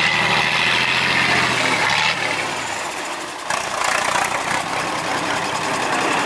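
Diesel engine of an IFA L60 4x4 trial truck running, its note fading away about two seconds in. About a second and a half later the sound changes abruptly to a harsher, noisier engine sound.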